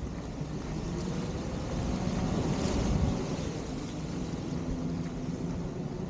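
A motor vehicle passing on the road: engine and tyre noise builds, is loudest about halfway through, then eases off.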